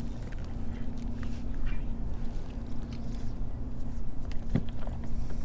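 Wind rumbling on the microphone, with a steady low hum that breaks off briefly now and then and a few light clicks, the sharpest near the end.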